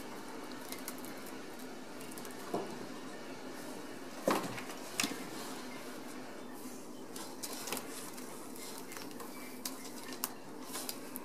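Ragdoll kittens playing with a corrugated cardboard scratcher and a wicker ball toy on a wooden floor: scattered light knocks, taps and scratches, the loudest two about four and five seconds in, over a steady low hum.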